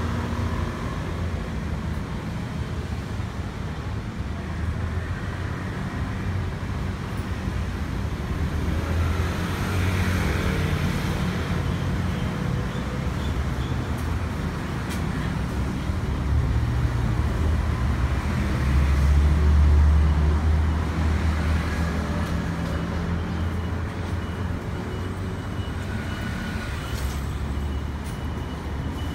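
Street traffic: the low rumble of passing motor vehicles' engines, swelling as a heavier vehicle goes by about two-thirds of the way through. A thin, steady high tone starts near the end.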